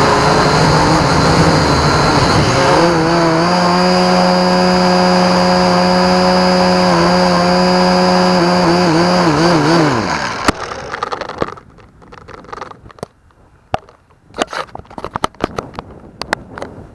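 Promark GPS quadcopter's motors and propellers picked up by its onboard camera: a loud steady whine and hum that wavers and then winds down to a stop about ten seconds in as the drone lands. A scatter of sharp clicks and knocks follows.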